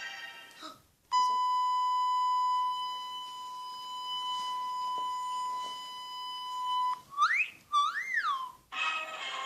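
Sound-effect clips played back: a steady high electronic beep starts about a second in and holds for about six seconds. It cuts off into two quick sliding whistle-like tones, the second rising and then falling.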